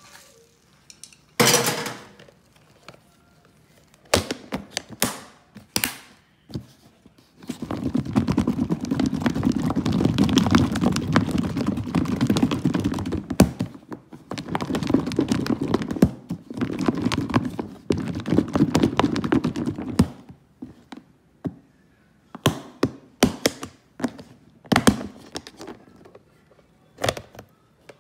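Chicken wings shaken in buffalo sauce inside a closed plastic food container to coat them: a dense rattling and sloshing in two long bouts of about six seconds each. Scattered knocks and taps of the container being handled come before and after.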